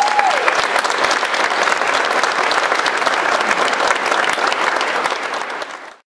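Audience applauding: a dense, steady clatter of many hands clapping that cuts off suddenly near the end.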